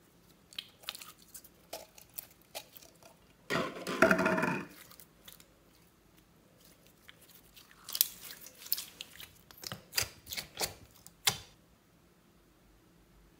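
Thick pink pearl slime squelching as hands pull it from its jar and stretch it, with sharp sticky pops and crackles. There is a longer, louder wet squelch about four seconds in and another run of crackling pops near the end.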